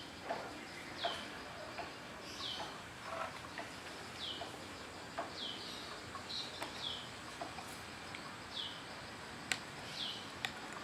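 A bird calling over and over, each call a short high note sliding downward, about once a second, with two sharp clicks near the end.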